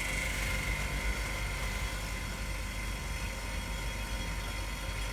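Phone-screen OCA laminating machine running its automatic pressing cycle: a steady mechanical whir with a low hum, and a high steady tone that fades away over the first few seconds.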